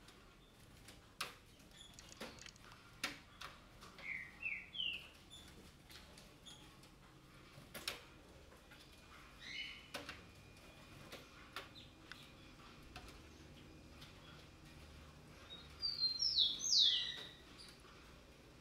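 White-eyed parakeets (Psittacara leucophthalmus) calling in short sweeping calls: three in quick succession about four seconds in, one near ten seconds, and the loudest run of calls near the end. Scattered sharp clicks are heard between the calls.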